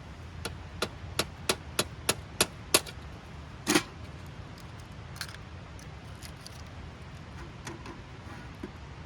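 A quick, even run of about eight sharp taps or clicks, roughly three a second, then one longer knock and a few faint ticks, over a steady low background.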